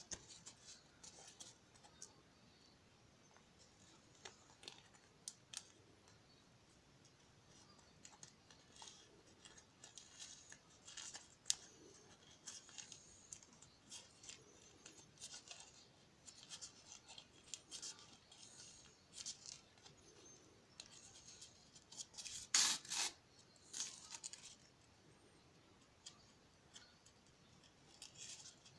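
Scissors cutting through umbrella canopy fabric in short, irregular snips, with a louder run of cuts about two-thirds of the way through.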